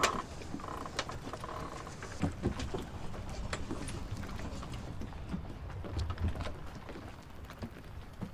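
Ambience aboard a sailboat at sea: irregular light clicks and patter over a low rumble.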